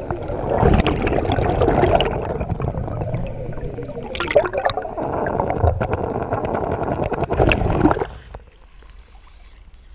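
Underwater gurgling and bubbling of a scuba diver's exhaled air streaming from the regulator, in irregular surges. It drops off suddenly about eight seconds in as the camera breaks the surface, leaving faint water sounds.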